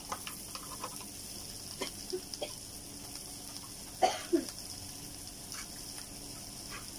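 Faint steady sizzle of tomatoes, onions and green chillies frying in a pan, with a few light clicks. About four seconds in, a short, louder call with a falling pitch cuts across it.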